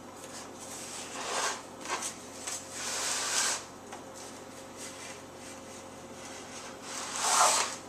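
Knife blade cutting into a parcel's packaging, with scraping and rustling of plastic and tape in a few bursts, the loudest near the end.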